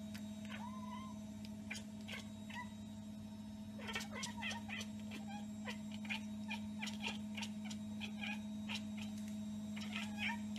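Domestic cat chattering: quick clicking chirps with a few short squeaky chirps, coming in flurries that get busier about four seconds in, typical of a cat fixated on prey it cannot reach. A steady low hum runs underneath.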